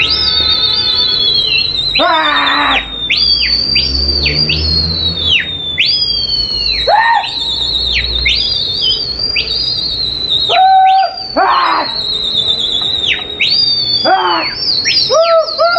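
Shrill human whistling, as rooftop pigeon flyers whistle to their circling flock. It wavers and trills around one high pitch, broken by repeated sharp downward swoops.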